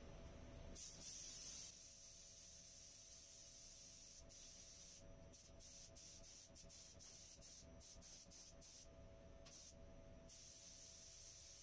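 Air spray gun hissing as it lays silver basecoat, the hiss broken off and restarted by a quick run of short gaps in the middle. A faint steady hum runs underneath.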